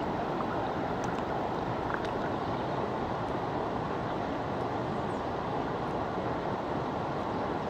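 Steady rush of flowing shallow river water close to the microphone.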